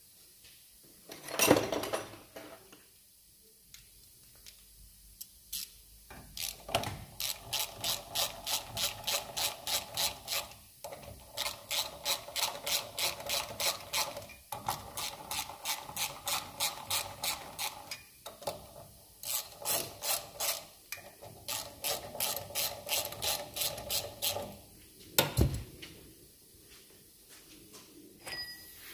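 Hand ratchet clicking in quick repeated strokes as the bolts holding a new brake disc to its hub are run in, in several runs with short pauses between them. A couple of loud metal clunks stand out, one near the start and one near the end.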